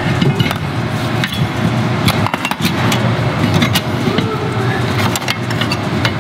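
Irregular metallic clinks and taps as a new center bolt is worked through the stacked leaf spring plates, over a steady low rumble.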